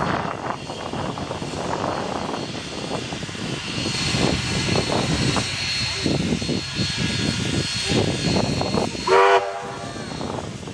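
Steam locomotive 3265, an NSWGR C32 class, standing with steam hissing, then one short blast of its whistle about nine seconds in.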